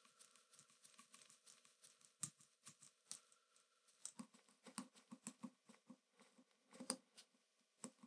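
Faint clicks and taps as a screwdriver works the screws and metal terminals of an old electrical plug held in gloved hands. There is a quick run of ticks in the middle, and the sharpest knock comes shortly before the end.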